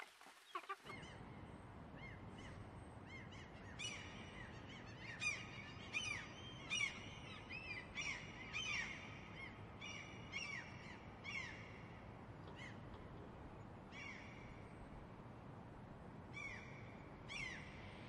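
Chickens clucking briefly, then, after a cut, wild birds calling: a long run of short, sharp, arching calls, roughly one a second, over a steady background rush.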